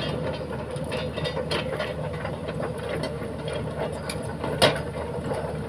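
Old excavator's diesel engine running steadily, with scattered metallic clanks and knocks and one sharper, louder knock about four and a half seconds in.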